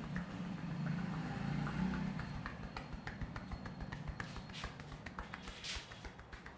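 Hands massaging a head: many light taps and pats on the scalp, with a couple of brief brushing rubs through the hair near the end. A low hum sounds under the first two seconds.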